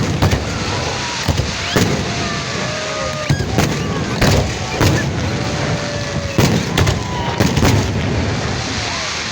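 Fireworks going off: many sharp bangs at irregular intervals over a continuous crackle and rumble of further bursts.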